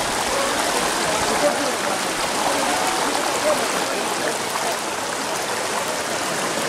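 Water rushing steadily, with faint indistinct voices underneath.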